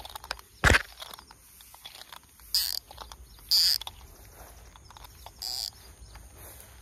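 A sharp knock about a second in, then three short, high bird calls a second or so apart over quiet outdoor background.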